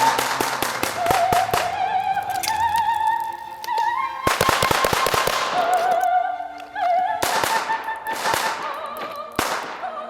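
Several rapid strings of shots from blank-firing 9mm model pistols fired with flash-powder caps, heard over music with an operatic soprano voice.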